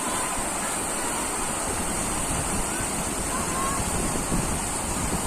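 River water rushing, a steady, unbroken wash.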